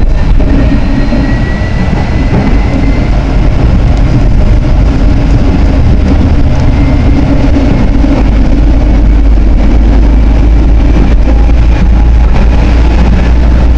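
Tram running along its track: a steady low rumble with rail noise, and a faint whine rising slightly in pitch over the first few seconds.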